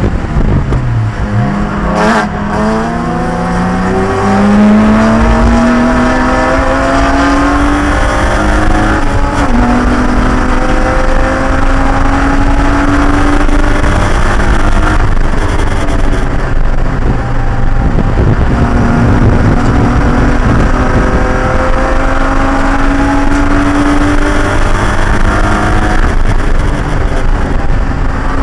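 Race car engine under hard acceleration. Its pitch falls briefly near the start, then climbs in long pulls, dropping at gear changes about nine and eighteen seconds in before rising again.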